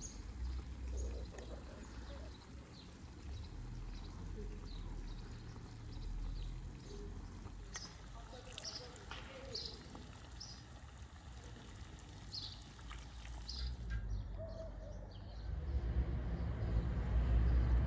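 Small birds chirping in short, high calls, over a low steady outdoor rumble. The chirps stop about fourteen seconds in, and the low rumble grows louder near the end.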